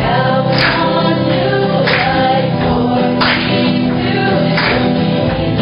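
Group of people singing together to a strummed guitar, with a sharp hit about every second and a quarter.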